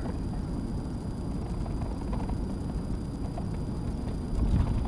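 Steady low rumble of road and engine noise inside the cab of a Ford F350 diesel pickup on the move, with a louder low bump near the end.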